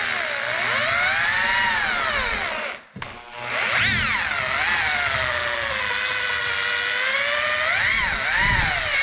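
Corded drill with a paddle mixer stirring thinset mortar in a plastic bucket. The motor whine rises and falls as its speed changes under the trigger and the load. It stops briefly about three seconds in, then spins back up.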